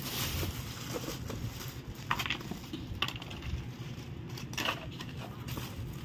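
A few short clinks and crinkles of a plastic bag of rice and bowls being handled, over a steady low rumble.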